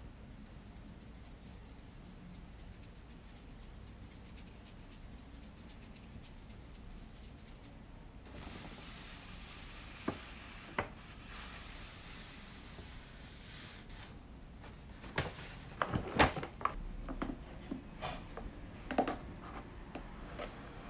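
Hands rubbing and rustling a brown paper takeout bag, the rustle growing louder as the bag is opened. In the last third, a hard plastic rotisserie chicken container is handled on a wooden cutting board, with a cluster of sharp plastic clicks and crackles.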